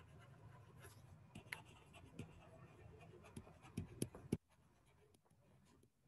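Faint tapping and scratching of a stylus writing on a tablet, with a few sharper taps around four seconds in; the sound then cuts off to silence.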